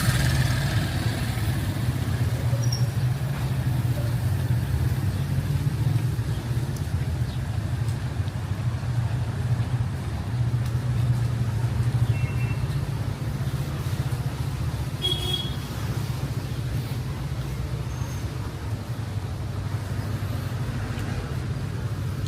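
Steady rumble of street traffic, with a few brief faint higher sounds passing through it.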